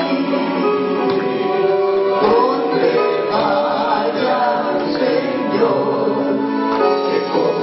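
Mixed group of male and female voices singing a worship song together, accompanied by a live church band with a plucked string instrument.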